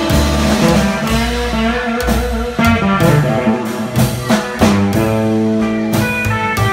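Live band playing: an upright double bass walking a low line under a guitar, with drums.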